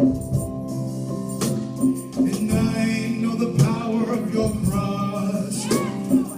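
Live worship music: sustained keyboard chords, with voices coming in singing about two seconds in.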